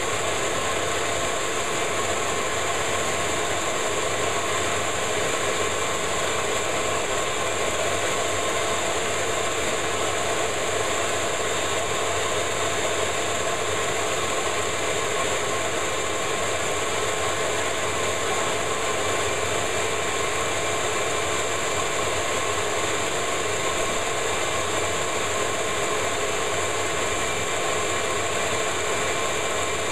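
Ridgid shop vac motor running steadily at full power, a loud even rush with a steady whine, its hose vacuuming lint and dust out of an electric clothes dryer.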